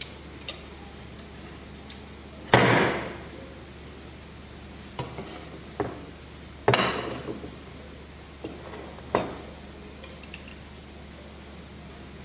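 Kitchen clatter of pots, bowls and utensils: a series of sharp clinks and clanks with a short ring, two of them much louder, about two and a half and nearly seven seconds in.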